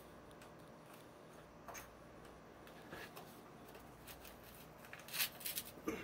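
Faint rustling and light clicks of hands working wires, plastic sheeting and insulation into an electric water heater's thermostat compartment, with a louder cluster of rustles near the end.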